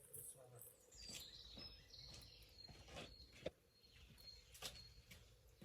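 Near silence, with a few faint scattered clicks and taps.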